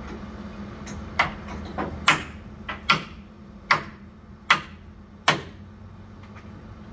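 Hammer blows on metal on a Waltzer ride's frame during assembly: six sharp, ringing strikes, about one every 0.8 seconds, stopping a little after five seconds in.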